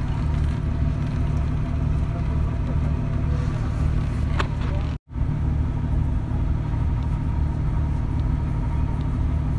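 A large engine idling steadily, a low rumble. One light click about four seconds in, and a brief dropout about five seconds in.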